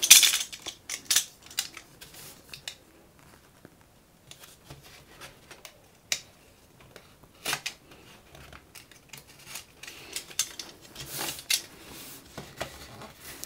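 Utility knife cutting and scraping at the sealed wrapping of a cardboard cassette box: irregular small clicks, scrapes and crinkles. They are loudest in the first second or so and again about eleven seconds in, with quieter gaps between.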